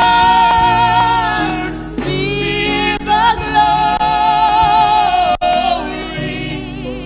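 Live gospel singing with keyboard and band accompaniment: long held, wavering sung notes, one at the start and another about halfway through, the music easing off near the end.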